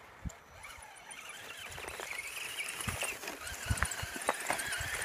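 Electric drive motor and gears of an Axial SCX10 Deadbolt 1/10 scale RC crawler whining, coming in about a second and a half in, getting louder and wavering in pitch with the throttle, with scattered knocks as the truck works over the ground.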